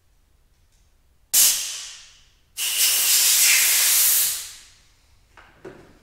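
Two blasts of hissing pressurised spray, as used to blow or wash off hydraulic-cylinder parts. The first is short and sudden and fades out; the second is steady for nearly two seconds, then tails off.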